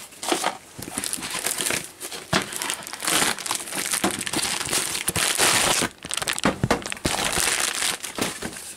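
Plastic air-column packaging crinkling and rustling as it is handled and pulled off a boxed electronic device, with many sharp crackles.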